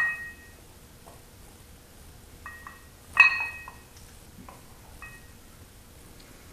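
Cast-iron plates on an adjustable dumbbell clinking and rattling during one-arm concentration curls. There is a sharp ringing clink at the start, fainter clinks a little past two seconds in, and the loudest clink about three seconds in.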